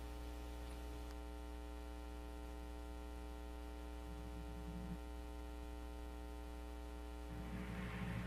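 Steady electrical mains hum, a stack of even tones with a faint hiss. A faint low murmur comes in about four seconds in and again near the end.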